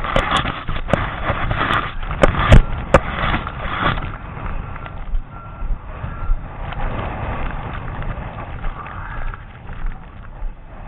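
Storm wind blasting across the microphone, with several sharp knocks in the first three seconds. A faint vehicle reversing alarm beeps on and off behind it.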